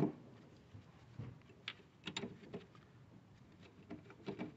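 Faint, irregular metallic clicks and taps as nuts and bolts are set by hand onto a new engine mount.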